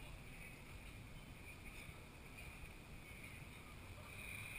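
Faint, steady open-air background: a low rumble with a thin steady high hum and no distinct events.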